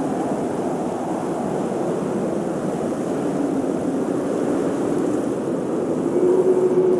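Blizzard wind blowing steadily, with a faint howling tone that swells louder near the end.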